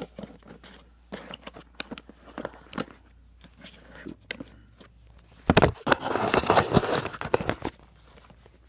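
A cardboard box handled close to the microphone: scattered clicks and rustles, then about five and a half seconds in, a loud rubbing and scraping with a few thumps lasting about two seconds.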